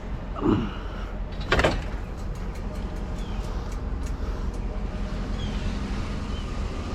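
Steady low hum of an idling vehicle, with a short falling squeak about half a second in and a loud clunk about a second and a half in.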